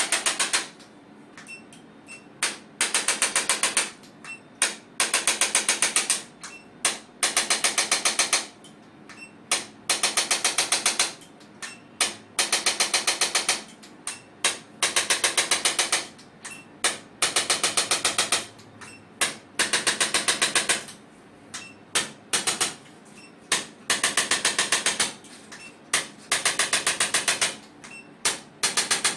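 Chiropractic adjusting gun firing in runs of very rapid clicks, each run about a second long, repeated about a dozen times with single clicks in between. It is delivering adjustments along the lower lumbar spine at L4-L5 and the sacroiliac joint to release facet-joint stiffness.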